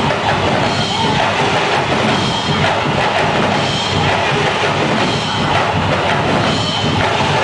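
Dinagyang festival percussion band of bass drums, snares and other drums playing a loud, steady beat for a tribe's dance.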